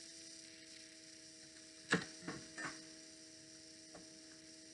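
A few quick handling sounds of a book's lift-the-flap page as the flap is opened: a sharp rustle-snap about two seconds in, then two softer ones just after. They sit over a steady electrical mains hum.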